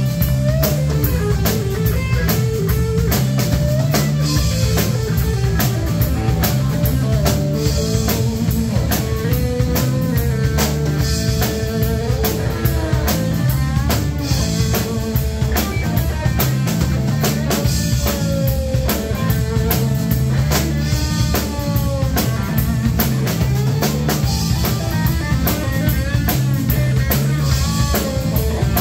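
Live rock band playing an instrumental passage: an electric guitar solo full of string bends over a steady drum-kit beat.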